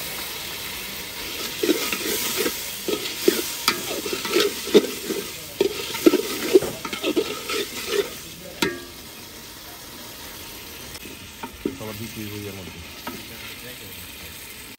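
A metal spatula scraping and knocking against an aluminium pot in quick, irregular strokes while chicken and spice paste sizzle in the oil, being fried down with stirring. The stirring stops about two-thirds of the way through, leaving a fainter steady hiss.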